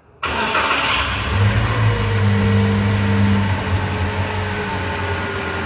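Toyota All New Rush's 1.5-litre four-cylinder petrol engine starting about a quarter second in, on its first start with the battery just reconnected after a tune-up. It settles into a steady raised idle that eases a little lower after a few seconds.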